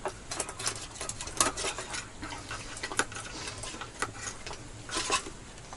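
Puppy eating wet canned food from a metal bowl: irregular clicks, clinks and wet smacks of jaws and tongue against the bowl.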